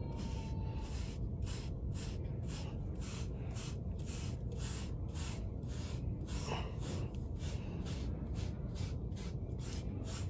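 Bristle hairbrush swept again and again through short hair, a rhythmic scratchy brushing of about three strokes a second.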